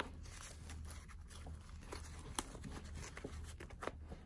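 Faint handling noise of a nylon MOLLE strap and pouch being worked by hand, with a few small clicks and taps, over a low steady hum.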